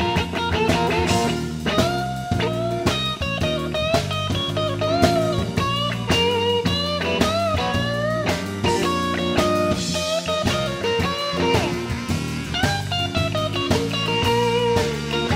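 Blues band playing live: a guitar lead with notes that bend up and down over a steady drum kit beat.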